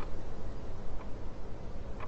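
Train running on its rails: a steady low rumble with a light click about once a second.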